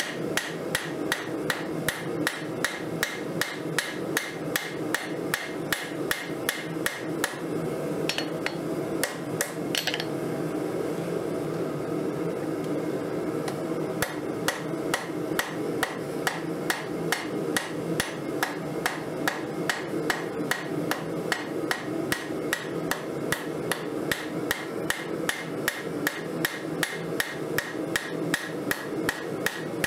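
Cross-peen hammer striking hot 1080 high-carbon steel on an anvil in steady blows, about three a second, forging out a railroad spike knife blade by spreading the thick edge. The hammering pauses for a few seconds about ten seconds in, leaving a steady background noise, then resumes.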